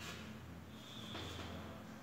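Chalk writing on a blackboard: faint scratching and tapping strokes, with a brief high squeak about a second in.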